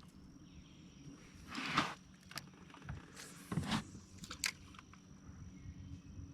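Quiet handling noises in a small fishing boat: a few brief rustles and light knocks, with two louder scuffs about one and a half and three and a half seconds in.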